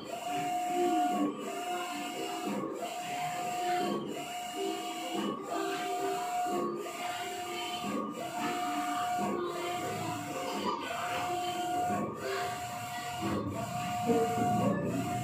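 Large-format tarpaulin printer printing: the print-head carriage sweeps back and forth across the banner with a steady whine on each pass and a short break at each reversal, about three passes every four seconds.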